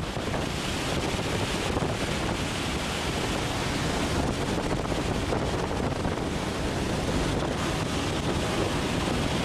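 Steady rush of wind and aircraft noise inside a skydiving jump plane's cabin, its door open in flight.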